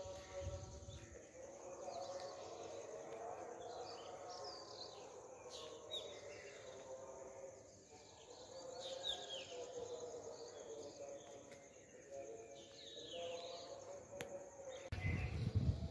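Evening outdoor ambience: birds calling with repeated short falling chirps over a steady high insect trill, with a low rumble near the end.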